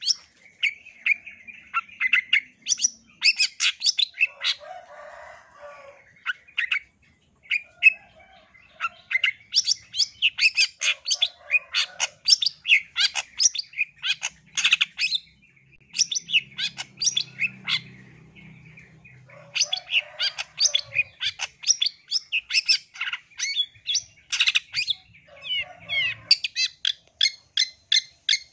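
Long-tailed shrike (cendet) singing: quick runs of sharp chattering notes, several a second, broken by short pauses, with harsher scratchy calls mixed in.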